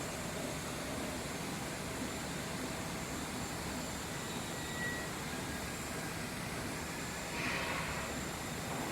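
Steady rushing noise of a jet airliner's engines, with a brief louder hiss about seven and a half seconds in.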